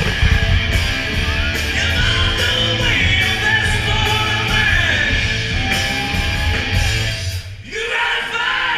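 Live band music with a singer, recorded from the audience in a large hall. The music drops out briefly near the end and then comes back.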